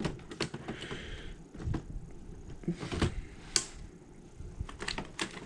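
Handling noise: scattered clicks and knocks of objects being handled, with a short soft rustle about a second in and two louder knocks near the middle.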